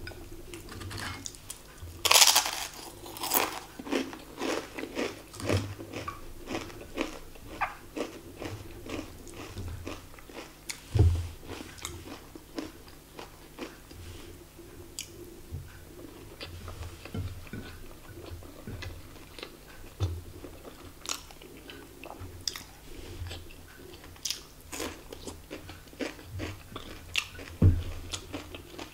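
A person eating close to the microphone: crisp fried tempe fritter crunching loudly about two seconds in, then ongoing chewing with many small crackly mouth clicks. A couple of dull thumps, one about a third of the way in and one near the end.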